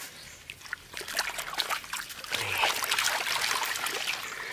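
Muddy water sloshing and splashing as a plastic basket is swept through it, then trickling and pattering as the water drains out through the basket's holes.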